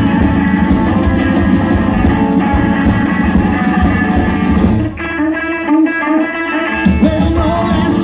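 Live band playing with electric guitar over bass and drums. About five seconds in, the drums and bass drop out and the guitar plays a bending phrase alone for about two seconds before the full band comes back in.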